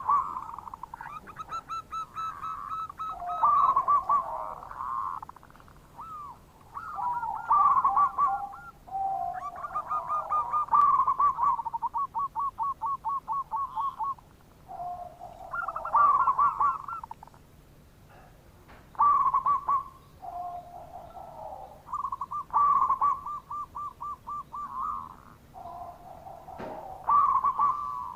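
Zebra dove (perkutut) cooing: phrases of quick, rippling coos come one after another every two or three seconds. One longer run of even, rapid pulsed notes comes near the middle.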